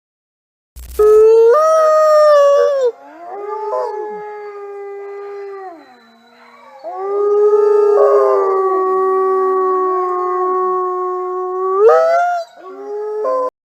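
Mexican wolves howling in chorus: long, held howls from more than one wolf overlap at different pitches. It begins about a second in, with a howl that rises and then falls. A dip comes in the middle, and a howl swoops up sharply near the end before the sound cuts off abruptly.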